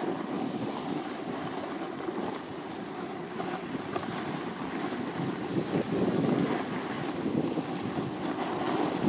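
Wind buffeting a phone's microphone on a ski slope: a steady, low rushing noise that swells somewhat about six seconds in.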